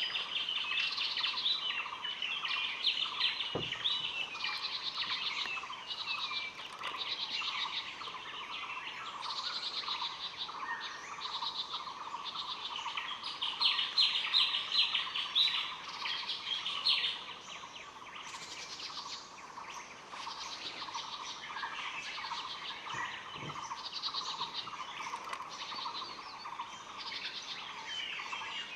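A chorus of small wild birds chirping and twittering, with a steady lower hum running underneath; the chirping is loudest in the middle.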